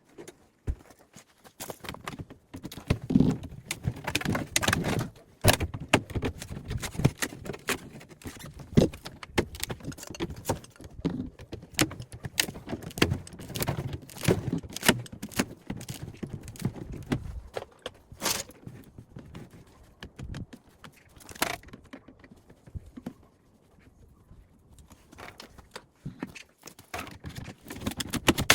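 Hand tools and loose metal parts clicking, tapping and rattling while a refrigerator is being taken apart, with heavier handling knocks in places and a quieter stretch near the end.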